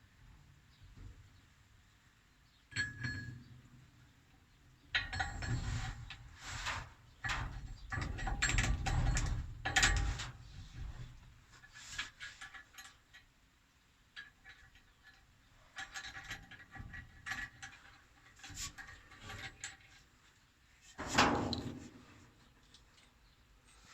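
Irregular clinks, knocks and rattles of metal and plastic parts being handled and fitted during a pump repair, busiest in the first half, with one louder knock near the end.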